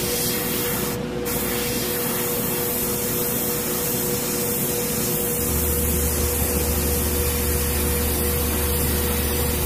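Harder & Steenbeck Grafo T1 airbrush spraying thinned black lacquer: a steady hiss of air and paint, broken off briefly about a second in when the trigger is let go. A steady hum runs underneath, and a lower hum joins about five and a half seconds in.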